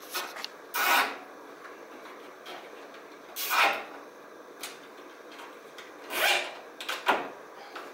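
Nylon zip ties being pulled tight through their locks: three short ratcheting zips, a couple of seconds apart, with a few small clicks and taps in between.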